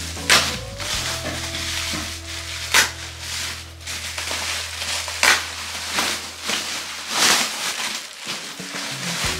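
Bubble wrap packaging rustling and crinkling as it is pulled off a parcel, in a series of short bursts every second or two, over soft background music with a steady low note.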